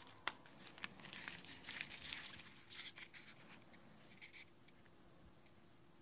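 Faint handling noise from a small plastic USB vacuum cleaner being turned over in the hand: scattered light clicks, taps and scratchy rustles, with one sharp click about a quarter second in. The noises die away about four and a half seconds in.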